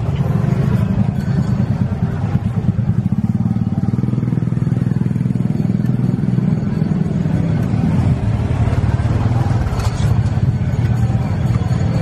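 A motor vehicle engine running steadily, a low hum with no break; a few light clicks near the end.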